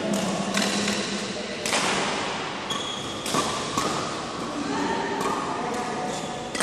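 Badminton rally: a series of sharp racket hits on the shuttlecock, roughly one every half second to second, echoing in a large hall, with short squeaks of court shoes between them.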